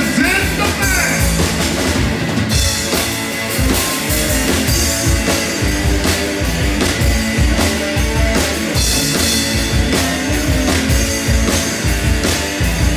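Rock band playing live without vocals: a drum kit keeping a steady beat on bass drum and snare, under electric bass and electric guitar.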